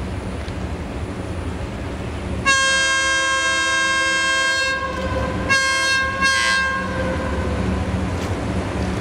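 Multi-note air horn of a KTM Class 23 Hitachi-built diesel locomotive sounding two blasts: one about two seconds long, a third of the way in, then after a short gap a second with a quick extra note that fades out. A steady low rumble of the approaching locomotive runs underneath.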